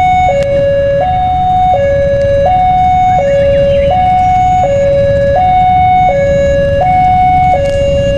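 Railway level-crossing warning alarm sounding: an electronic two-tone signal alternating steadily between a higher and a lower tone, each held about three-quarters of a second, warning that a train is approaching. A steady low rumble runs underneath.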